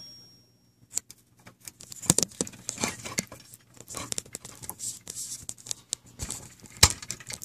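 Hotend being pushed and seated into a 3D-printed plastic extruder body by hand: irregular small clicks, scrapes and rustles of handled plastic parts, with one sharper knock near the end.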